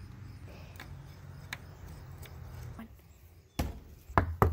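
Knocks on the weathered wooden boards of a backyard playset: a few faint taps, then several sharp knocks in quick succession near the end.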